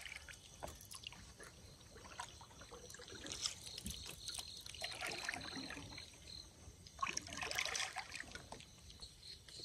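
Faint trickling and splashing of water, with small scattered knocks and a few louder sloshes, and a thin high insect trill in the background partway through.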